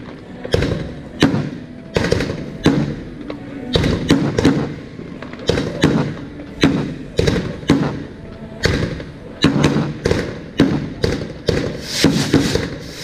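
Aerial fireworks going off in a rapid, unbroken series of sharp bangs, about one to two a second.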